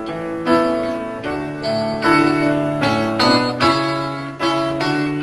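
Piano-toned keyboard playing the instrumental introduction of a pop song, a run of struck chords that ring on between strikes.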